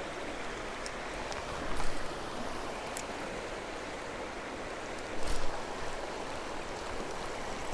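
Creek water running steadily, with two short louder knocks, about two seconds in and about five seconds in, and a few faint clicks.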